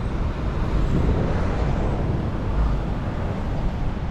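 Steady rushing roar of the Niagara River rapids, heaviest in the low rumble.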